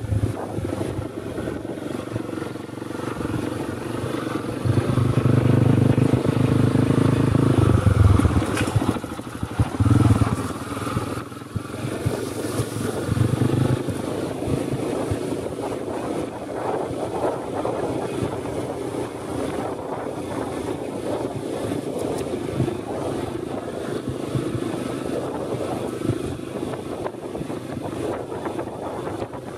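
Small motorcycle engine running as the bike rides a rough dirt trail. The engine note gets louder for a few seconds about five seconds in, then settles back to a steady run.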